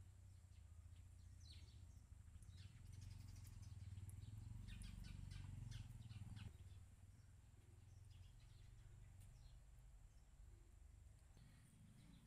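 Faint outdoor ambience: small birds chirping in short, quick calls, over a low background rumble that swells for a few seconds in the middle.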